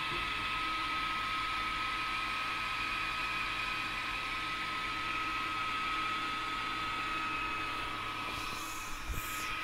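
Steady electrical whine with a fan-like hiss from the powered-up avionics panel of a Van's RV-7. Near the end comes a brief rustle and a low thump.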